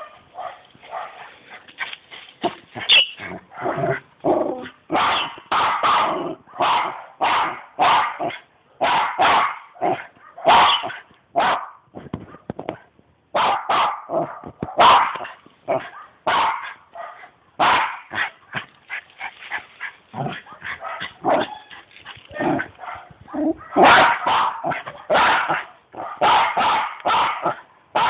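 West Highland white terrier barking over and over in short, sharp barks, about two a second, with a brief pause about halfway through.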